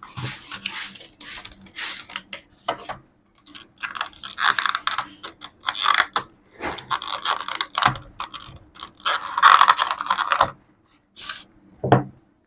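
Hands handling and opening an electric toothbrush's paper and plastic packaging: irregular rustling, crinkling and small plastic clicks. The longest rustles come about four to five seconds in and again around nine to ten seconds in.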